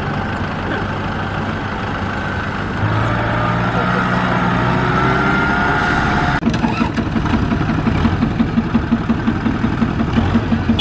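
Kubota M6040SU tractor's diesel engine running under load, with a rising whine in the first half. After a sudden cut it pulses in an even beat of about four a second while it hauls a loaded trailer through mud.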